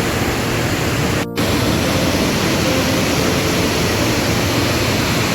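Loud, steady rush of the Maligne River's water through the canyon, with faint background music underneath. The sound breaks off for an instant a little over a second in.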